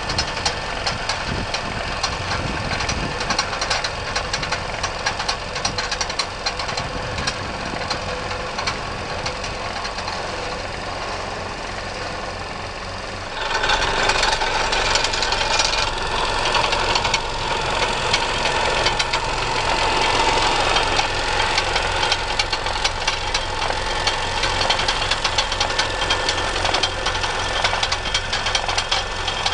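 Tractor engine running steadily while a small tractor-mounted cable plough cuts through a roadside verge laying fibre duct, with a fast mechanical clatter. About 13 seconds in the sound becomes louder and brighter.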